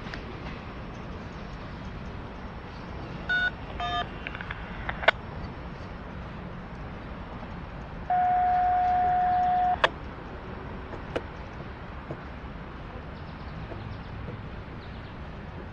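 Electronic beeps: two short beeps a little over three seconds in, then a loud steady beep lasting nearly two seconds about eight seconds in, over a steady low rumble.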